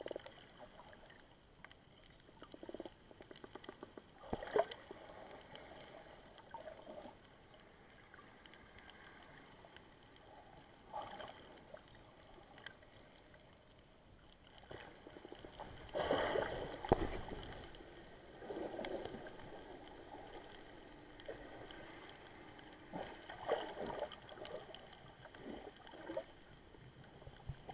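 Muffled water swishing and gurgling, heard through a camera held underwater as a snorkeler swims, coming in irregular swells every few seconds, loudest about halfway through. A faint steady high tone runs underneath.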